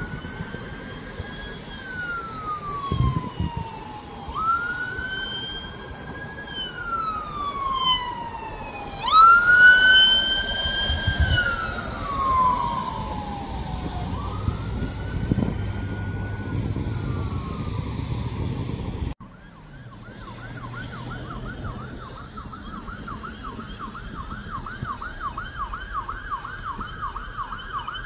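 Police cruiser siren wailing in slow rising and falling sweeps, one wail louder about a third of the way in. After a sudden cut about two-thirds of the way through, a siren runs in a fast yelp, several sweeps a second.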